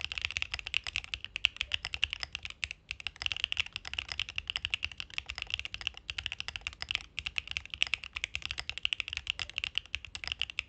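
Fast, continuous typing on a mechanical keyboard fitted with Arco x HMS switches. The keys click densely, with two brief pauses, about three and seven seconds in.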